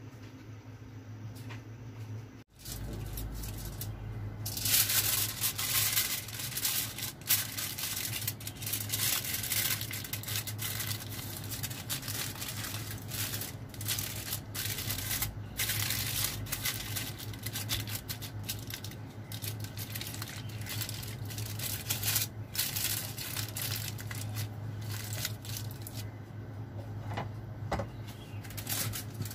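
Aluminium foil being handled and wrapped, crinkling and rustling with many small sharp crackles from a few seconds in, over a steady low hum.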